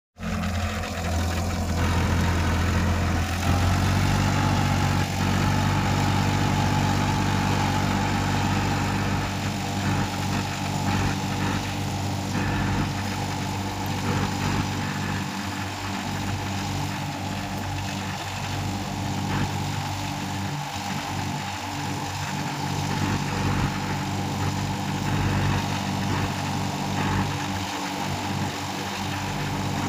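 Massey Ferguson 241 Dynatrack tractor's three-cylinder diesel engine running steadily under load as it pulls a seven-tine cultivator through the soil.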